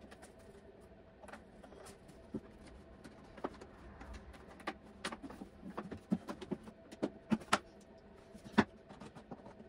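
Scattered small clicks, taps and knocks of hands fitting a part into a hard plastic motorcycle saddlebag and shifting the bag about, at uneven intervals with the loudest knock near the end.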